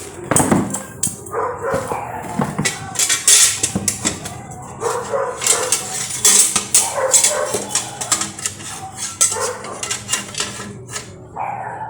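A dog barking and yipping repeatedly, amid sharp clattering knocks.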